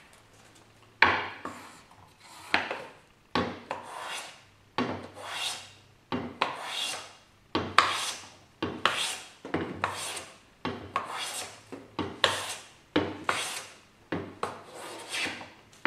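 Metal hand plane taking repeated short strokes across the face of a board, each stroke starting sharply and fading as the blade cuts a shaving, about one and a half strokes a second. The plane is taking down a thick spot to bring the board to even thickness.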